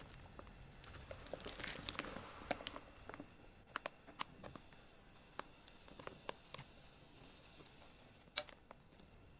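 Plastic piping bag crinkling and soft batter squishing out as thick soufflé pancake batter is piped into metal rings in a frying pan, with scattered small clicks and one sharp click near the end.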